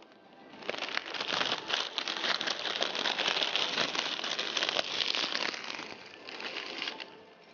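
Plastic packet of dry vermicelli crinkling and crackling as the strands are crushed and broken inside it. It starts just under a second in and stops near the end.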